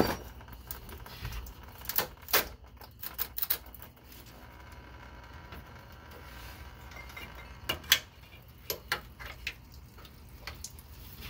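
Scattered light clicks and taps of metal parts as hands work the inline fuel filter and its steel fuel lines, some in quick little clusters.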